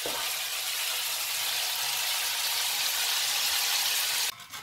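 Prawns and gulas sizzling in garlic olive oil in a frying pan, as gambas al ajillo: a steady hiss of frying that cuts off suddenly near the end.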